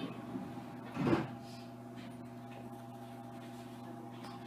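Steady hum of a Tama Toshi Monorail 1000 series car's onboard electrical equipment while the car stands still, with a single dull thud about a second in.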